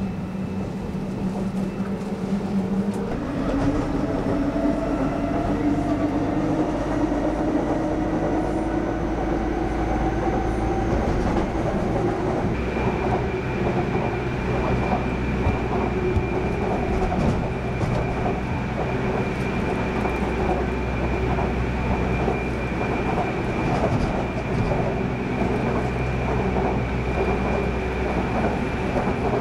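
Seoul subway Line 2 train running, heard from inside the car: a steady rumble of wheels on track, with a motor whine that begins about three seconds in and slowly rises in pitch as the train gathers speed. A steady high tone joins about twelve seconds in.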